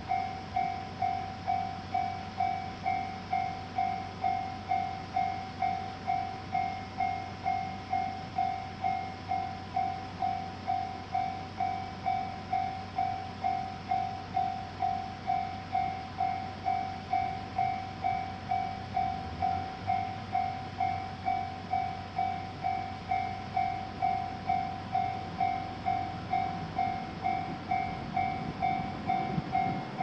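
Japanese railway level-crossing warning bell ringing steadily, a two-tone electronic 'kan-kan' at a little under two strokes a second, signalling a train is coming. A low rumble of the approaching train builds near the end.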